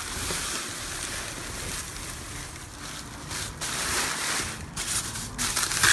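Plastic garbage bags rustling and crinkling as they are pushed about and handled, getting louder in the second half.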